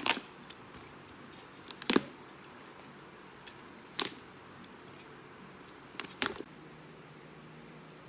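Pliers snapping and clacking as they grip and pull at a boot's old heel: a few sharp clicks about every two seconds over a low steady shop hum.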